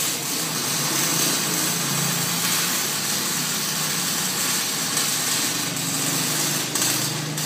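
Steady hiss of a CO2 MIG welding arc from a Tan Thanh TTC310RN diode welder running at about 116–119 A, with a low hum underneath.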